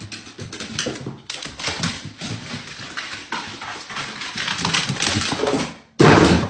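A dog's claws clicking and scrabbling on wooden stairs as it climbs, with a short loud noise near the end.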